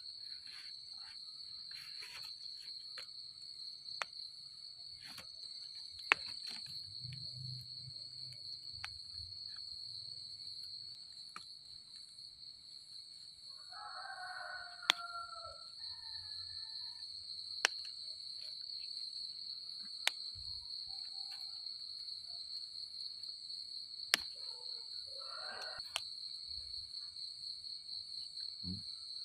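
Night insects trilling in a steady high chorus, with a few sharp clicks standing out now and then as mushrooms are picked from the leaf litter.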